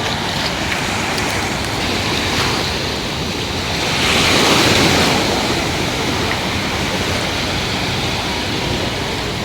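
Sea waves breaking and washing onto a beach, one wave swelling up and crashing about four seconds in.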